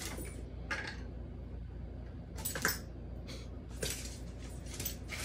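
A dog's claws clicking and scrabbling on a wood floor, with its collar tags jingling, in several short scattered bursts as it leaps and turns chasing bubbles.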